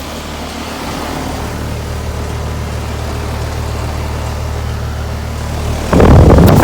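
Tempstar heat pump outdoor units running in cool mode: a steady low compressor hum under the rushing of the condenser fans. About six seconds in, a much louder rush cuts in suddenly, air blasting across the microphone.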